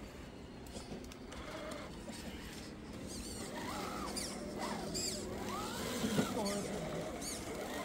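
An RC rock crawler's electric motor and gears whining in short throttle bursts, the pitch rising and falling with each burst, more often in the second half.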